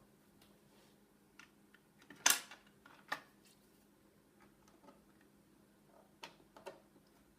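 A few sharp clicks and knocks of screws and a belt guard being handled and fitted to an industrial sewing machine. The loudest knock comes about two seconds in, with another close after it and two lighter clicks near the end, over a faint steady hum.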